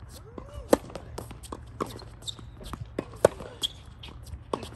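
Tennis rally on a hard court: sharp pops of a racket striking the ball, the two loudest under a second in and about three seconds in, with fainter knocks of ball bounces and more distant hits between.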